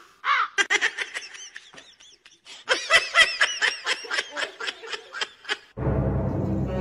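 High-pitched giggling laughter, a quick run of short chirpy bursts, which stops about six seconds in. Music with a steady low bass then comes in.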